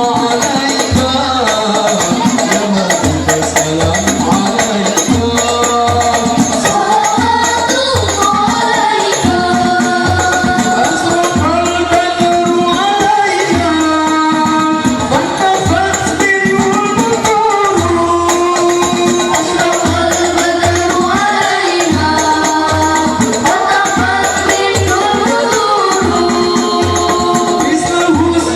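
Banjari music: voices singing together over hand-beaten frame drums keeping a steady beat, with jingling percussion on top.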